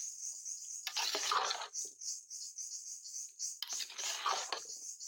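Metal spatula stirring cut arum (taro) stems in a large aluminium pot, two swishing, scraping strokes, one about a second in and one near four seconds. Insects trill steadily in a high, pulsing chorus.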